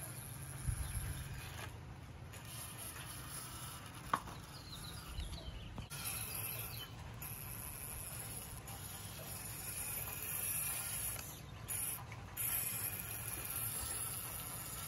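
Steady rain ambience: an even hiss with a high, continuous band on top, and a single sharp click about four seconds in.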